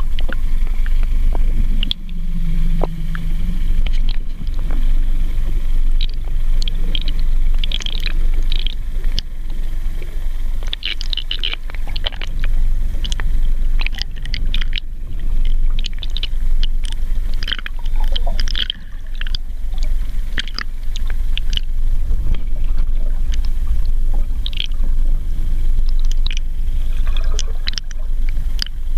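Underwater noise picked up by an action camera in its waterproof housing beside a boat hull: a steady low rumble of moving water, with scattered crackling and clicking of bubbles that comes in clusters.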